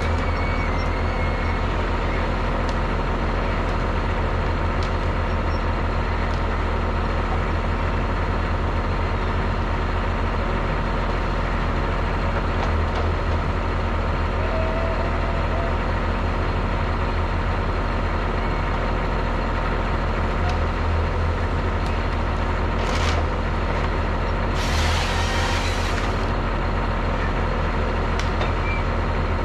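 Diesel engine of a converted Rottne H20 forestry machine running steadily close by, a constant low drone. Past the middle comes a brief hiss, then a longer hiss of about a second and a half.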